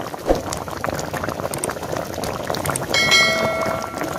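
Thick dried-mango and jaggery chutney bubbling and popping in a kadai, with a sharp pop just after the start. A ringing chime sounds for about a second near the end.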